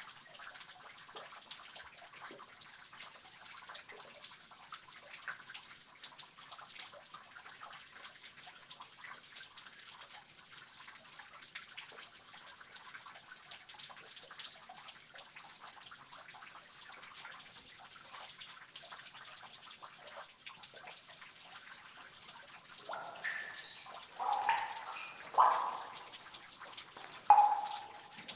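Water dripping and trickling in a cave: a steady faint trickle with a scatter of small drips, then near the end several louder, pitched drops plinking into water.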